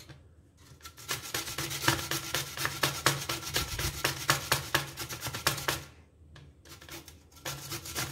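Carrot being grated on a stainless-steel box grater: a fast run of scraping strokes that pauses briefly about six seconds in, then starts again.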